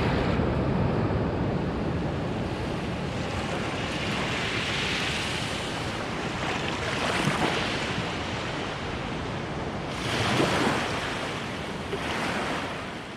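Ocean surf with big waves breaking one after another, each swelling and washing out, with wind buffeting the microphone.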